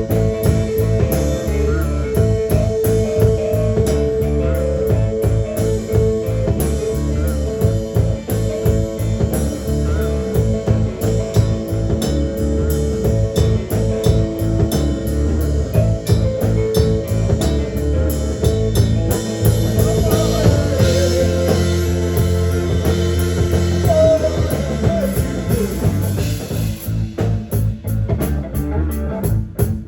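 Live rock band playing: guitar over bass and a drum kit, with long held notes and a steady beat.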